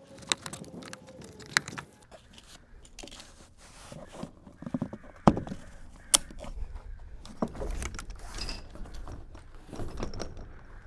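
Legs of a Naturehike folding camp cot being fitted onto its frame by hand: irregular sharp clicks and clacks of metal and plastic fittings, the loudest two about five and six seconds in.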